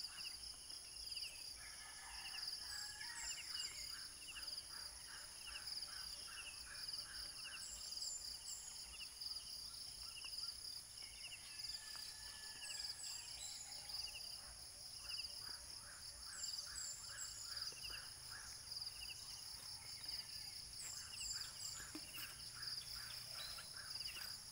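Rural outdoor ambience: insects drone steadily at a high pitch while birds call over and over in short, repeated chirps. A few faint knocks come near the end.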